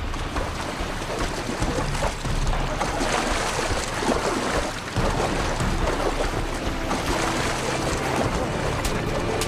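Sea water splashing and sloshing around a small inflatable life raft, under a background music score.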